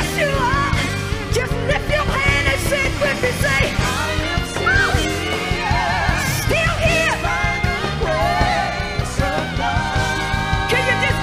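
Live gospel song: a woman's voice singing into a microphone, sliding up and down in runs, over a band of drums and bass guitar.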